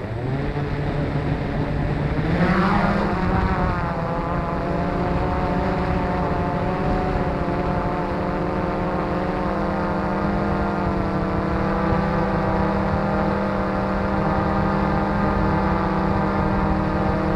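Q450 quadcopter's electric motors and propellers spinning up, the whine rising in pitch for about two and a half seconds, then holding a steady hum.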